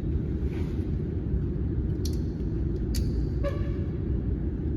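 Steady low background rumble, with a few short faint clicks about two and three seconds in.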